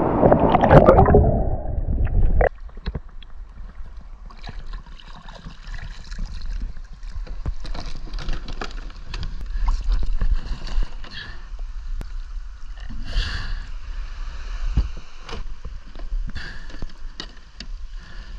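Water sloshing loudly close by for about two seconds, then dropping suddenly to a sit-on-top kayak being paddled on the sea: water gurgling and slapping against the hull with irregular paddle splashes and knocks, over a low steady wind rumble.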